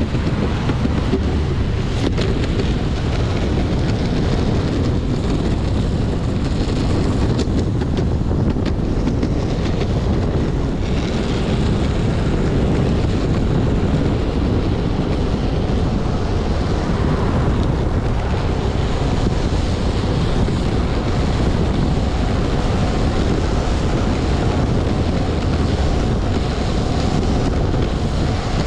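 Steady wind noise buffeting the microphone over the continuous rumble of a Max 4 Pro hub-motor electric skateboard's wheels rolling on pavement.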